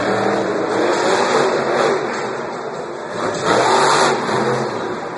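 Monster truck engines revving, the pitch rising and falling, with a louder burst of revving about three and a half seconds in. The sound echoes around a stadium.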